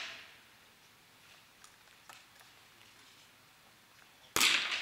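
A .22 rimfire smallbore target rifle fires once about four and a half seconds in: a sharp crack with a short ringing tail. Before it, the tail of an earlier shot fades out and a few faint ticks are heard.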